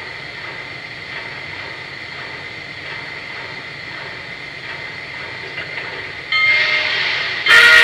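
Lionel Legacy O-gauge model of a 2-8-2 Mikado steam locomotive running on the track, with a steady running sound from its onboard sound system and wheels. About six seconds in its sampled steam whistle chord starts, and it grows much louder near the end.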